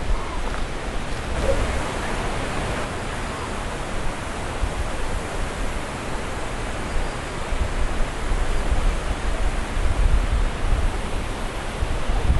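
Steady outdoor rushing noise with an uneven low rumble underneath, with no distinct events.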